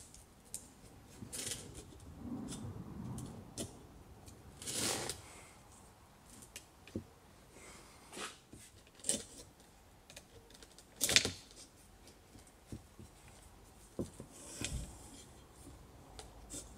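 Scattered clicks, taps and short scrapes of a plastic runner being fitted and slid along the metal rail of a Peugeot 607 electric window regulator, with a longer scrape about five seconds in and a sharp click, the loudest, about eleven seconds in.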